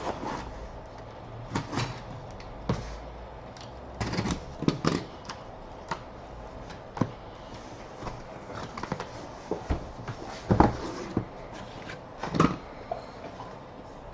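Cardboard case of hockey trading-card boxes being opened and unpacked: scattered knocks, scrapes and rustles of cardboard being handled, the loudest knocks about ten and twelve seconds in.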